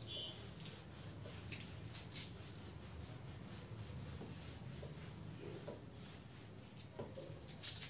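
Whiteboard eraser rubbing across a whiteboard in a series of short, faint wiping strokes as the written working is wiped off.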